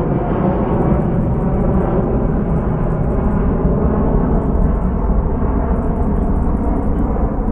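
Jet engines of a Frontier Airbus twin-engine airliner climbing away after takeoff: a steady, loud rumble with a deep low end. Its higher part fades a little in the second half as the plane recedes.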